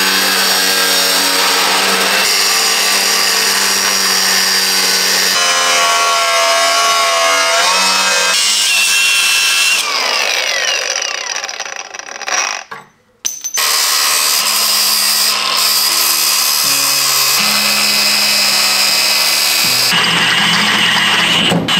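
Cordless angle grinder cutting through steel bar, then winding down; later a cordless drill boring through a steel bracket held in a vise. Background music with a steady bass line plays under the tools.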